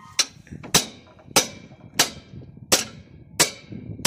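Hammer striking a spanner handle on a tractor's wheel nuts: about seven sharp metal blows at an even pace, roughly one and a half a second, each with a short ring. The nuts are too tight to turn by hand and are being knocked loose.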